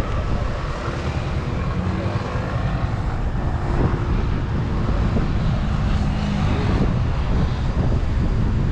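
Steady low rumble of heavy truck engines running.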